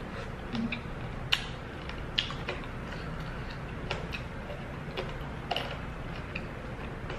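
Close-up eating sounds of a woman chewing and sucking meat off braised chicken bones: irregular wet mouth clicks and smacks, the sharpest a little over a second in, over a steady low hum.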